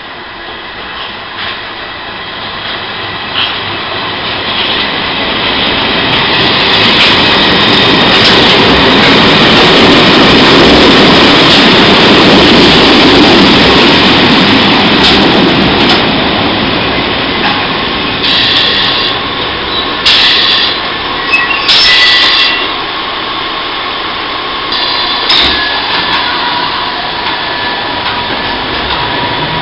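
London Underground A Stock electric train running into the platform and slowing. Its rumble swells to a peak about halfway through and then eases off, with several short, sharp hisses of air in the second half.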